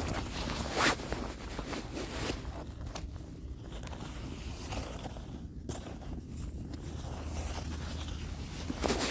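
Footsteps crunching and scraping through deep snow, with a louder crunch about a second in and another near the end, over a steady low rumble.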